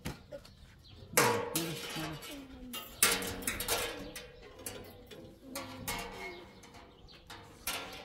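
Sharp knocks and clanks from an evaporative air cooler's housing bumping against the window frame and its bracket as the unit is pushed and shifted into place, four distinct strikes spread through a few seconds.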